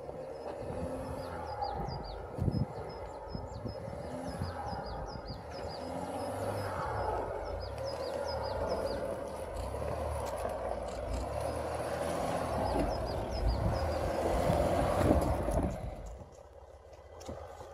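Land Rover Discovery crawling toward the microphone over a rocky, rutted dirt track in off-road mode, its engine and tyres on stones growing steadily louder, then dropping away sharply near the end. A single knock about two and a half seconds in, and small birds chirping repeatedly through most of it.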